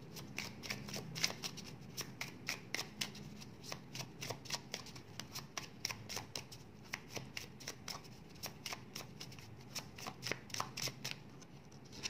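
A deck of rainbow oracle cards being shuffled by hand: a steady run of short card clicks, about three or four a second, stopping about eleven seconds in.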